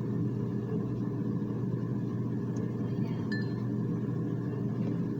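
Steady low background hum from their food cooking, with a faint small clink about three seconds in.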